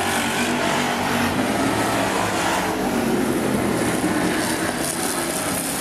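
Many demo-car engines running at once as a pack of old cars races round a speedway oval: a steady, loud, dense mix of engine noise.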